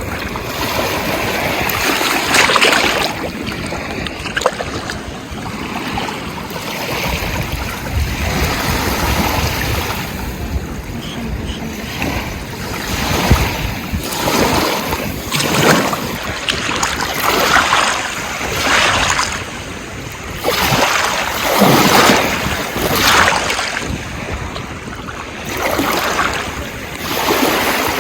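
Ocean waves washing in, as a steady rush that swells and falls in repeated surges, coming about every second or so in the second half. A low wind rumble on the microphone comes through about a third of the way in.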